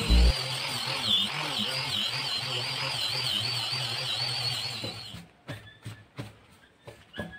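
Electric angle grinder with a sanding disc running against a painted wooden tabletop, a steady high whine that wavers, stopping about five seconds in. A few light taps and knocks follow.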